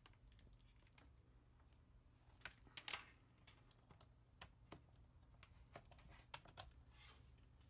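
Faint scattered clicks and taps of hands handling a laptop, among them the power adapter's plug being fitted into the laptop's side port. The loudest clicks come a little under three seconds in.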